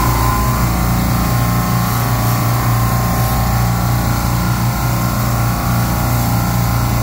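Commercial refrigeration rack running steadily, its compressors and fan giving a constant low hum under an even machine noise. The rack is at 100% capacity because it can't pull the suction pressure down.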